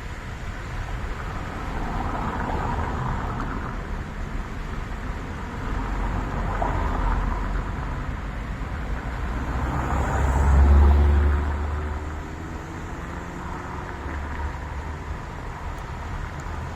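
Road traffic: motor vehicles passing one after another over a steady background of traffic noise, the loudest passing about two-thirds of the way through with a deep engine rumble.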